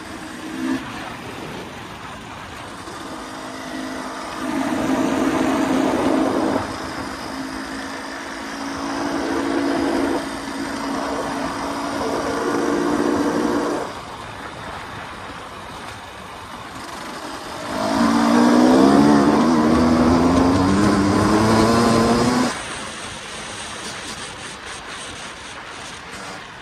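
A 2023 KTM 300 EXC single-cylinder two-stroke dirt bike engine, heard from the rider's seat as it is ridden: it comes on the throttle in several rising pulls and backs off to a quieter running sound in between. The longest and loudest pull comes near the end and lasts about five seconds, its pitch wavering as it climbs.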